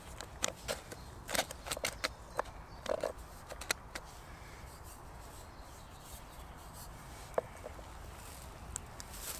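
Metal cans handled: a small tin can knocking and clicking against the rim of a larger coffee can as it is pressed inside, a quick run of light clicks and knocks with a fuller knock about three seconds in. After that only a single click near the end.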